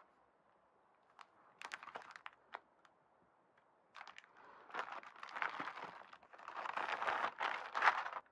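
Packaging crinkling and rustling as goods are unboxed. A few sharp clicks and taps come in the first few seconds, then a longer stretch of crinkling starts about four seconds in.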